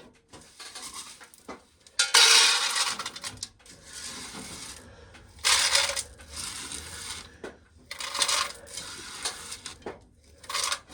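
Dry shelled corn kernels rattling as spilled corn is scooped up with a small can and poured. The sound comes in several separate bursts, the longest starting about two seconds in, with shorter ones later.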